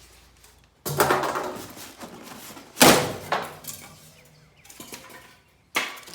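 Packing and box being shifted and handled: four sudden, loud scraping knocks about a second, three seconds, three and a half seconds and near six seconds in, the one near three seconds the loudest.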